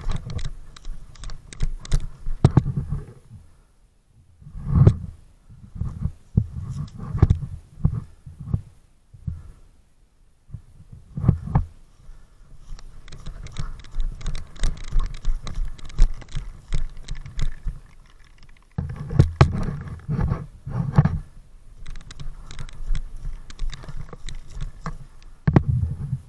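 Handling and movement noise on a body-worn action camera: irregular low thumps in clusters with sharp clicks among them, and short lulls about 4, 10 and 18 seconds in.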